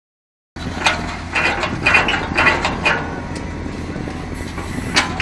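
Diesel engine of a JCB backhoe loader running steadily while its hydraulic auger is lifted out of the soil. There is a run of short, sharp metallic clanks about half a second apart over the first few seconds, and one more near the end.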